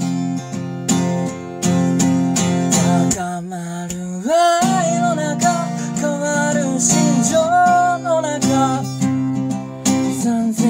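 Acoustic guitar strummed in a steady rhythm. A male voice sings over it from about four seconds in, sliding up into the first note.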